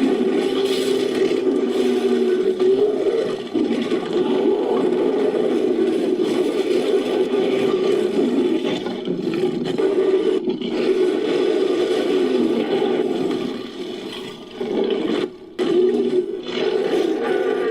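Designed creature vocalization: layered growls and roars mixed from big-cat and ape recordings, rough and nearly continuous, with a brief break about fifteen seconds in.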